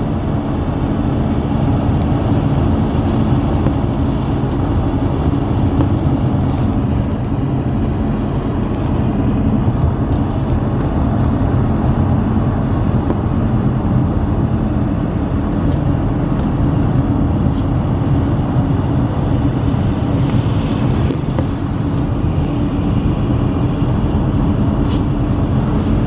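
Steady road noise inside a moving car: engine and tyre rumble on a wet highway.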